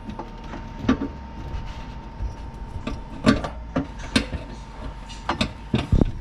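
Irregular knocks and clunks of an InSinkerator Badger 1XL garbage disposal and tools being handled and fitted under a kitchen sink, about a dozen sharp hits at uneven spacing. A faint steady tone runs underneath.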